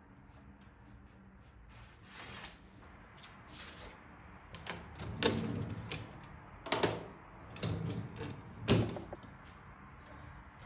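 A run of knocks and thuds, like things being handled or a door or cupboard being worked. After a quieter first half, about four louder knocks come between five and nine seconds in, and the last is the loudest.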